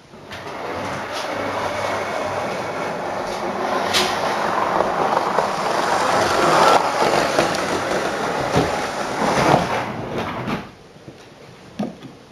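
Model train running past on the layout's track, a rattling rumble of wheels and motor. It builds over the first few seconds, is loudest about halfway through, and cuts off sharply near the end.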